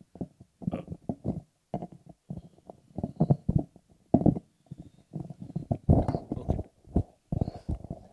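Microphone handling noise: a string of irregular bumps, rubs and rumbles, with a few sharper knocks, as a corded microphone is worked out of the clip on its stand and taken in hand.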